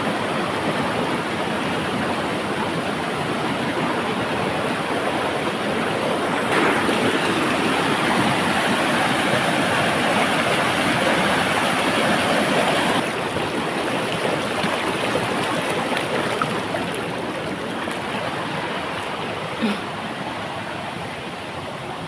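Rushing water of a muddy stream pouring over rocks and rapids, a steady rush. It grows louder for several seconds in the middle, drops off abruptly about two-thirds through, then fades gradually.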